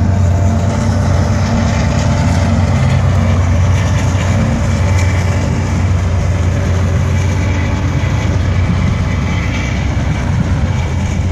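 Freight train rolling past at close range: a steady, loud low rumble of the locomotive and cars on the rails, with a faint high squeal coming and going from about the middle on.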